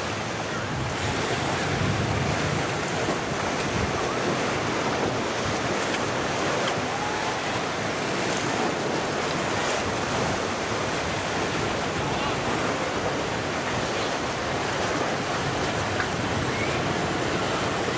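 Steady, even rush of waves and wind at an ocean inlet, with wind on the microphone.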